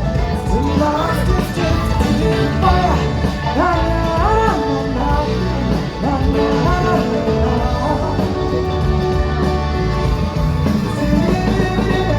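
Live band music with a male lead vocal singing over guitar, bass and drums, played loud through a concert PA.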